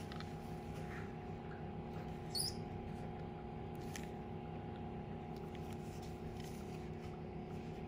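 Steady low hum of room equipment with several held tones and scattered faint clicks, broken once, about two and a half seconds in, by a brief high squeak.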